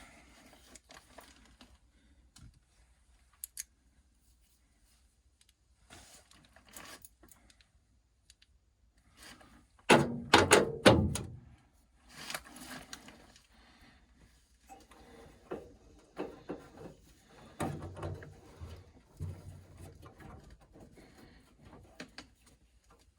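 Scattered metal clicks, clunks and rattles of hand work on a furnace while a run capacitor is fitted to the blower motor, with a loud cluster of knocks about ten seconds in.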